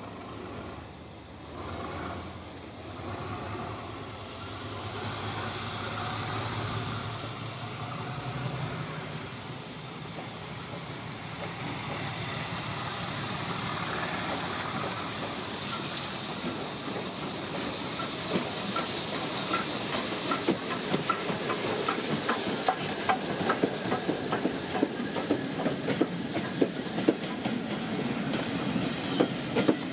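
Steam locomotive hauling passenger coaches approaches and passes with a steadily rising steam hiss. From about two-thirds of the way in, the coaches' wheels click sharply over rail joints, getting louder toward the end.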